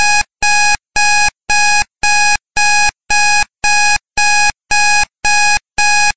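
Countdown timer's electronic alarm beeping, one loud buzzy tone pulsing evenly about twice a second: the timer has run out.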